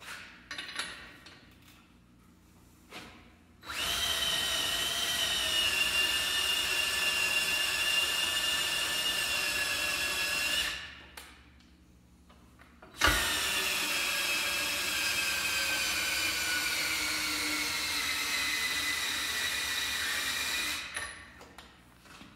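A cordless DeWalt drill running in two steady whines of about seven seconds each, spinning the pinion to roll the ring and pinion gears of a Dana 30 axle while the gear contact pattern is being checked. The second run starts with a knock and slowly sags in pitch.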